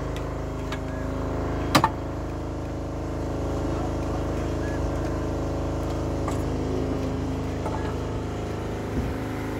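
A steady engine drone, with a sharp knock about two seconds in and a few fainter clicks.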